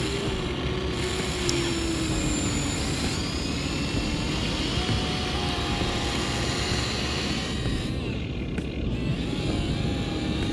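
Huina remote-control excavator's small electric motors whining as the boom and bucket dig and lift, the whine gliding in pitch as the arm moves. Underneath is a steady rush of wind and surf.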